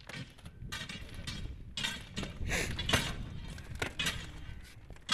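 Mechanical rail lifting jack being worked by its long lever, with clinking metal and crunching ballast stones in a jumble of short, irregular strikes.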